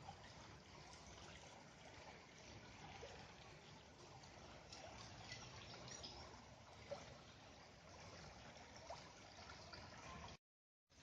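Faint, steady trickle of a small bush stream. The sound cuts out abruptly near the end.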